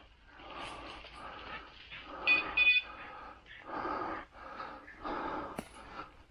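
Repeated rustling and breathing sounds as someone pushes through dense brushy undergrowth. Two short electronic beeps, the loudest sounds, come about two and a half seconds in.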